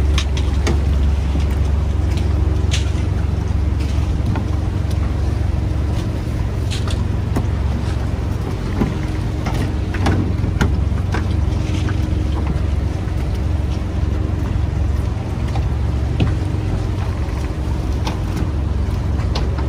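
Fishing boat's engine running steadily with a deep drone, with scattered short knocks and clatters over it.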